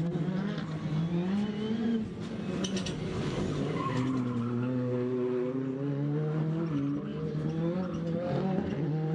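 Ford Fiesta R5 rally car's turbocharged four-cylinder engine driven hard. Its pitch climbs, drops sharply about two seconds in, then holds and slowly rises again. A few sharp cracks come around three seconds in, and tyres squeal as the car slides.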